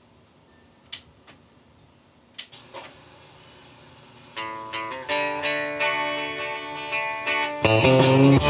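A few short clicks, then the guitar intro of a recorded song starts about four seconds in and builds, with the bass and full band coming in near the end.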